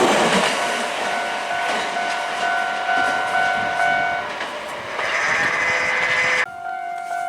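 Nankai Koya Line electric train passing a level crossing, its rumble fading over the first second or so. The crossing's electronic warning bell rings with a steady, repeating two-tone ding, and another burst of noise cuts off suddenly near the end.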